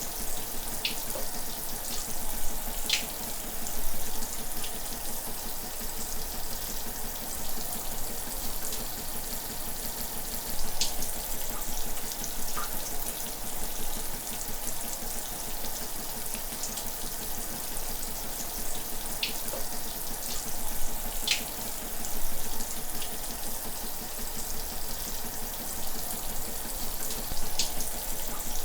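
Shower running steadily: a continuous hiss of falling water, with brief splashes or droplet sounds every few seconds.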